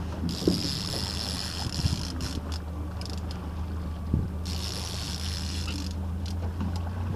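A boat engine runs steadily at trolling speed with a low hum. A high whirr from a fishing reel comes in twice, for a second or two each time, while a hooked fish is played.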